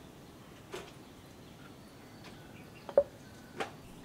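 A few short sharp taps and clicks as spices are added onto chopped vegetables on a wooden chopping board; the loudest comes about three seconds in. Faint bird chirps sound in the background.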